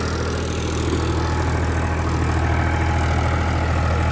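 Powertrac 439 Plus tractor's three-cylinder diesel engine running steadily under load at a set throttle, pulling a disc harrow through the soil.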